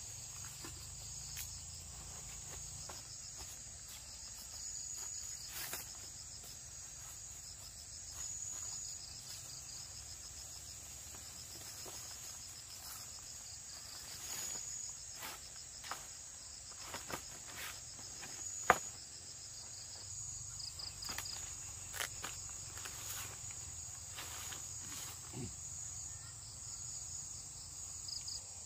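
Insects chirring in the evening: a steady high-pitched buzz with short runs of rapid pulsed chirps repeating every few seconds. Scattered soft rustles and clicks run through it, with one sharp click about two-thirds of the way in.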